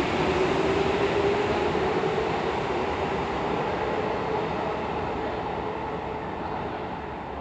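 Tokyo Metro 15000 series electric train pulling away. Its running noise and motor whine rise slightly in pitch, then fade steadily as the train leaves the platform.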